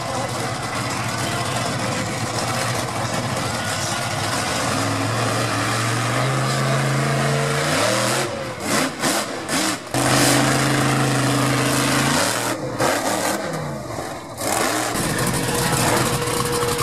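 Monster truck engine revving hard, its pitch climbing in steps and dropping back several times as the truck drives up onto a row of scrap cars, over a loud rushing noise.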